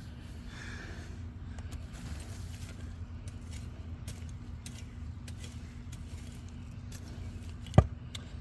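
Potatoes being dug out of garden soil and handled by hand, with small scattered knocks and clicks and one sharp knock near the end, over a steady low hum.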